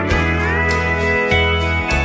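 Instrumental break of a country song: steel guitar playing sliding notes over a bass line and a steady drum beat.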